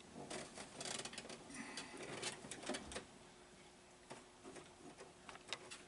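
Small clicks and rubbing from hands working a replacement vacuum door-lock valve and its rubber vacuum hoses inside an open car door. The handling noise is busiest in the first half, then thins to a few isolated clicks.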